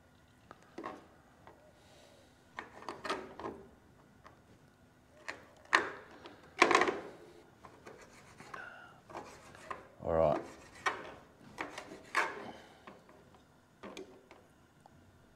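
Knife cutting flathead fillets on a chopping board: irregular short scrapes and knocks, the loudest a knock about ten seconds in.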